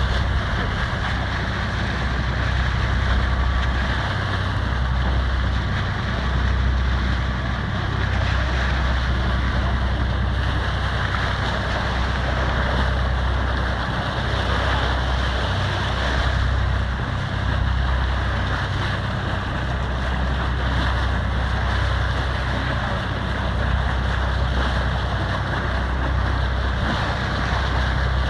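Boat on the water: a steady low rumble that swells and eases every second or two, under an even wash of water noise.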